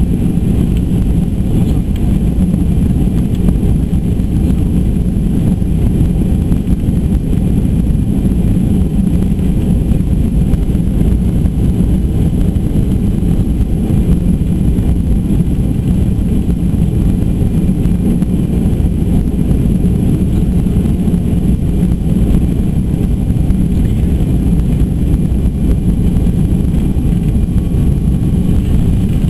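Steady low cabin roar of a Boeing 737-200's JT8D turbofan engines and rushing airflow on final approach, heard from inside the cabin.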